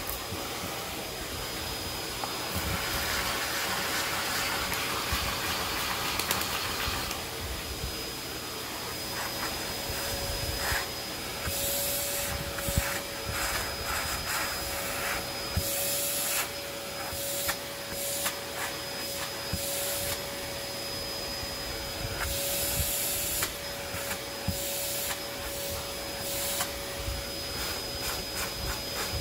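Vacuum cleaner running, its hose nozzle sucking up carpet debris and a dirty filter pad with a steady rush of air and scattered ticks. A steady whistle joins in about ten seconds in.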